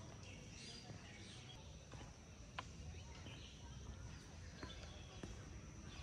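Quiet forest ambience: a steady high-pitched insect drone with a few faint bird chirps about a second in. Scattered sharp clicks and a low rumble run underneath.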